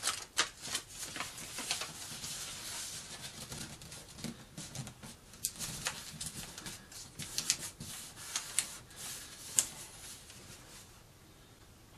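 A sheet of paper rustling and crackling as it is folded by hand and the crease pressed flat, with irregular sharp crinkles; it dies down about a second before the end.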